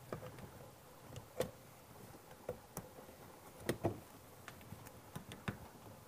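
Faint plastic clicks and knocks as a washing machine's plastic drain pump is handled and pushed onto the motor shaft. The taps come irregularly, with a louder pair close together a little past halfway.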